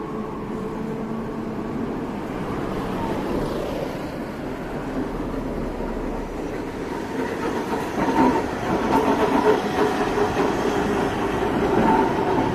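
Iyotetsu streetcar running along street track, wheels rumbling and clacking over the rails with a ringing tone. It grows louder in the second half as the tram draws close.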